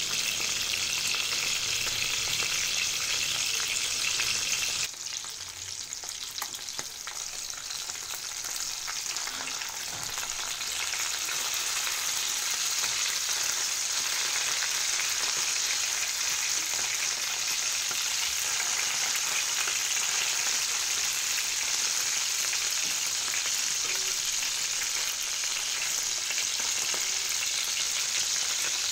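Mackerel pieces and garlic frying in hot oil in a nonstick pan: a steady sizzle. About five seconds in it drops suddenly to a softer sizzle, then builds back up over the next several seconds and holds steady.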